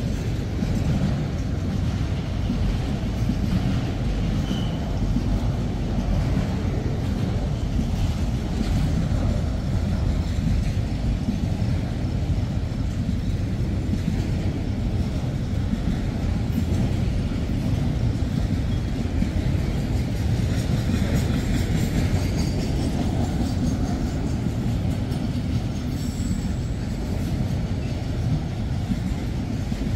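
CSX freight train of autorack cars rolling past: a steady rumble of steel wheels on the rails.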